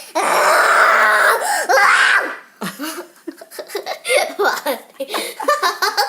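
A child's voice imitating a lion's roar, a harsh raspy roar of about two seconds, followed by a few seconds of choppy giggling laughter.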